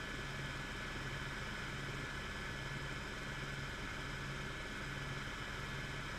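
Helicopter in cruise flight heard from inside the cabin: a steady drone of engine and rotor with a thin, steady high whine over it.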